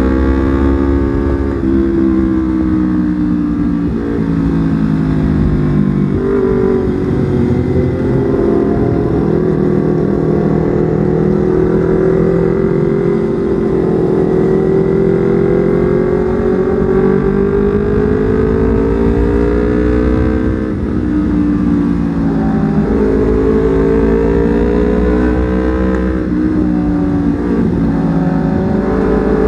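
Yamaha R25's 249 cc parallel-twin engine under way, its pitch rising and falling as the rider accelerates and shifts gears, with a short dip a little over two-thirds in.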